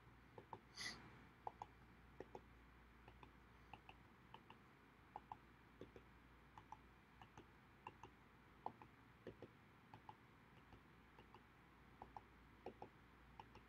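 Faint, irregular small clicks and taps, about two or three a second, made while hand-drawing cross-outs on a digital number chart; otherwise near silence.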